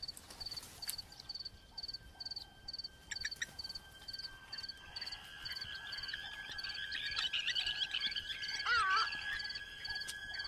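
Natural wildlife ambience: a short high chirp repeating about twice a second over a steady high insect drone. Bird calls build up after about five seconds, with a brief warbling call near the end.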